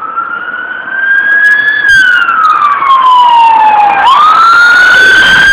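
Emergency-vehicle siren in a slow wail. The pitch climbs, sinks slowly for about two seconds, then sweeps sharply back up about four seconds in. It is loud, growing louder about a second in as the vehicle comes closer.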